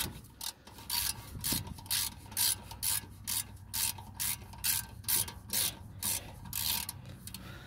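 Socket ratchet with a Torx 45 bit spinning out a brake caliper guide bolt, a short ratchet buzz on each back-swing, about two a second, stopping about seven seconds in.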